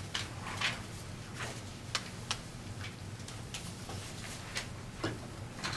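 Irregular light clicks and taps, roughly two a second, of small objects being handled.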